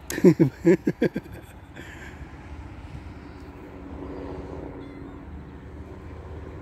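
A cat gives a quick run of about five short, loud calls, falling in pitch, in the first second or so. After that a steady traffic hum swells a little about four seconds in.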